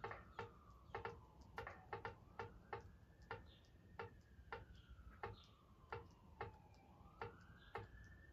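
Chess app's move sound: short clicks at a steady two a second as the game replays on fast-forward, one click per move. A faint tone slowly falls and rises behind them.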